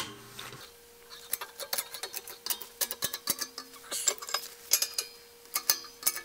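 Hydraulic shop press's bottle-jack pump handle worked by hand, its linkage clicking and clanking in quick irregular strokes as the press bears down to straighten a bent stump jumper from a Bush Hog 305 brush cutter. A faint steady hum sits underneath from about half a second in.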